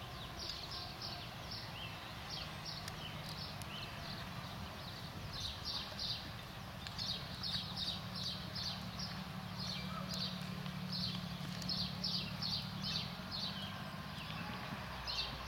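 Small birds chirping in quick runs of short high notes, busiest in the second half, over a steady low hum, with a horse cantering on arena sand.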